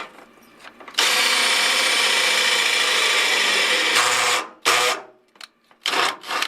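Power drill running steadily for about three seconds, then two short bursts, as it works a screw or hole in the car's body panel for the ECU bracket.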